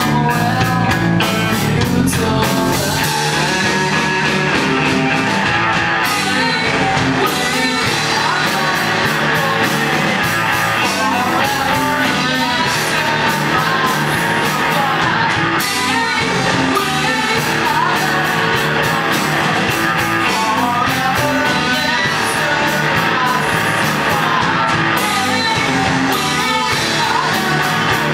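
Rock song with electric guitar and a singing, at times shouted, vocal, playing at a steady loud level.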